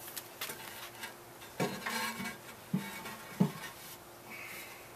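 Heavy ceramic fire ring of a Grill Dome kamado being set down and settled on the ceramic firebox: a series of knocks and scrapes of ceramic on ceramic, the loudest a little after three seconds in.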